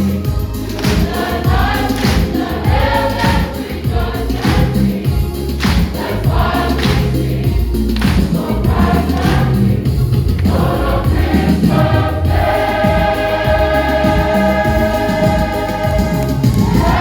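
Youth and Sunday school choir singing a Christmas medley over accompaniment with a steady low beat, then holding one long final chord from about twelve seconds in.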